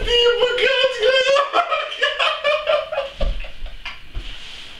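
Young men laughing hard on a sofa: a high, breathless laugh that breaks in rhythmic bursts for about three seconds and then trails off, with a couple of dull thumps near the end.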